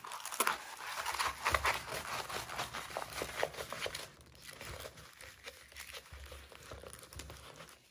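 Diamond painting canvas and its paper sheet being rolled up by hand: paper crinkling and rustling in quick, uneven rubs. It is busier in the first half and softer after about four seconds.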